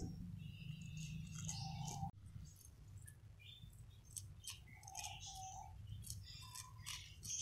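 Cat licking creamy paste from a squeeze-tube treat: a run of quick, faint wet tongue clicks and smacks. A low hum underneath cuts off about two seconds in.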